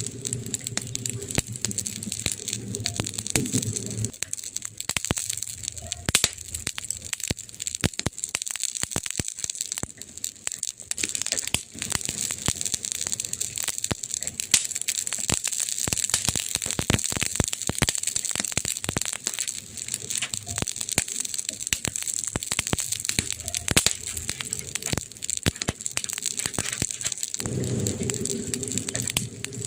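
Burning wood crackling, with many irregular sharp pops and snaps over a steady hiss. A low hum sits under it for the first few seconds and comes back near the end.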